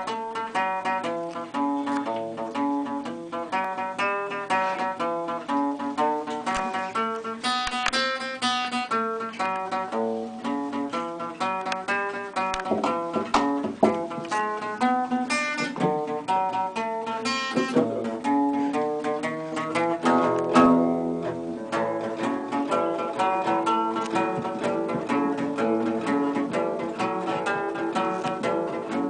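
Several guitars, acoustic ones among them, playing a piece together in an informal rehearsal, a steady run of plucked notes throughout.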